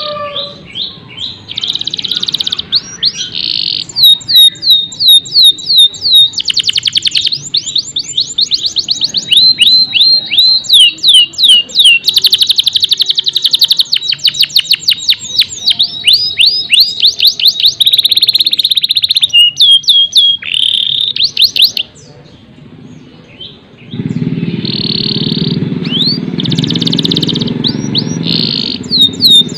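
Domestic canary singing: fast trills of repeated falling notes and buzzy rolls, with a short pause about two-thirds through. In the last few seconds a low rumble runs under the song.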